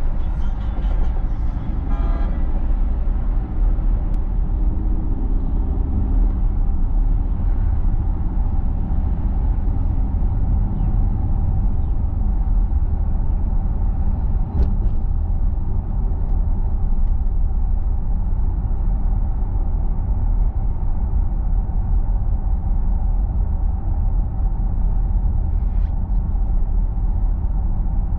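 Steady low rumble of a car driving at road speed, heard from inside the cabin: engine and tyre noise. In the first two seconds a brief pitched tone, like a horn, sounds over it.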